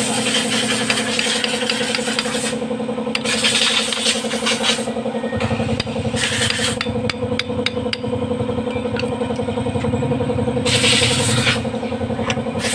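An engine running steadily at idle with a pulsing hum. Over it come clicks and several short bursts of metal tools scraping and tapping against engine parts.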